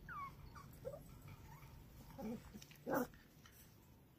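Cavalier King Charles spaniel puppies whimpering: a few short high cries, one falling in pitch, then two short yaps about two and three seconds in, the second the loudest.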